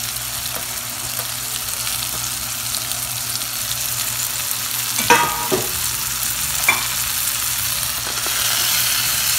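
Mixed vegetables and green peas sizzling in hot oil in a kadai, stirred with a spatula that scrapes and knocks against the pan a few times, most sharply about five and seven seconds in. The sizzle grows a little louder near the end.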